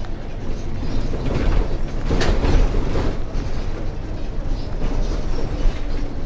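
Scania K230UB single-deck bus heard from inside while driving: the diesel engine runs under steady road and body noise, with a brief louder rush of noise about two seconds in.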